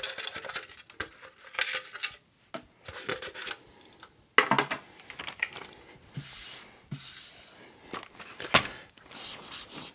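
Hands handling and working on a plastic RC car: scattered clicks and knocks with brief bursts of rustling, and a louder knock about four and a half seconds in.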